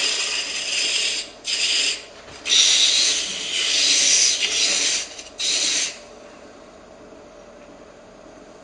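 Sandpaper wetted with walnut oil hissing against an olive wood box turning on a lathe, in four bouts of rubbing with short breaks, then stopping about six seconds in, leaving only a faint steady hum. The oil makes this a wet-sanding finish stage.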